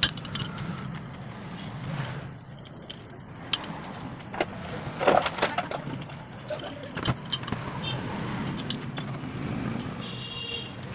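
Metal parts of an alternator and a spanner clinking and knocking against each other and the bench as the unit is handled and taken apart, with a cluster of louder knocks about halfway through. A steady low hum runs underneath.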